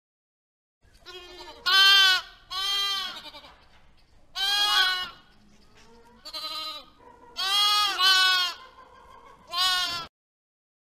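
Sheep bleating: about seven calls in quick succession, each bending in pitch, starting about a second in and stopping abruptly near the end.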